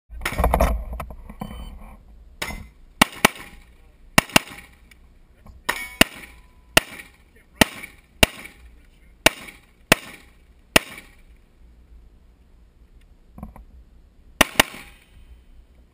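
AR-style carbine fired in a stage run, about fifteen shots in singles and quick pairs half a second to a second apart, a pause of a couple of seconds, then a few more shots near the end. A loud rush of noise fills the first second.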